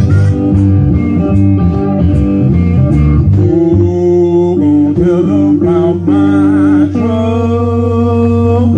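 Live blues band playing: electric guitar, bass guitar and drums, with a harmonica playing long held notes into the microphone.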